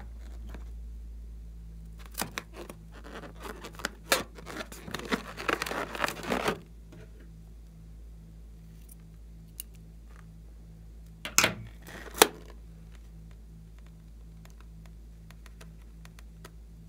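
Scissors snipping through the rubber of a slime-filled toy balloon: two sharp snips about a second apart, past the middle. Before them comes a few seconds of crackly handling noise, all over a low steady hum.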